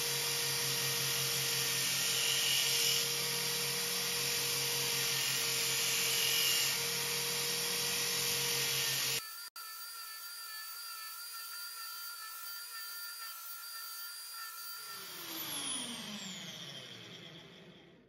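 Electric drill motor spinning an abrasive disc while a steel file is ground against it: a dense grinding hiss over the motor's steady whine. About nine seconds in the sound changes abruptly to the motor's whine with lighter grinding, and near the end the motor is switched off and its pitch falls as it winds down.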